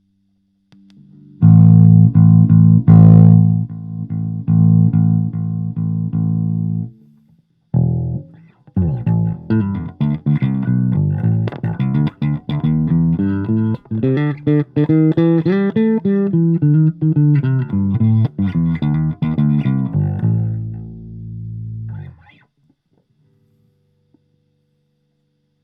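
Electric bass played through a Fender Rumble 25 combo bass amp: a low note plucked over and over, a short break, then a run of quick notes that climbs in pitch and comes back down. It ends on a held note that fades out, followed by a few seconds of silence.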